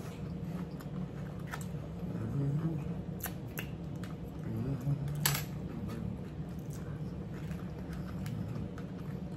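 Two people eating cucumber salad: chewing, with a few short sharp clicks of forks and bites, over a steady low hum.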